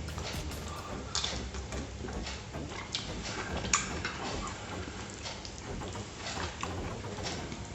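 Close-miked chewing with wet mouth smacks and small clicks, irregular and continuous: a mukbang eater chewing a mouthful of food.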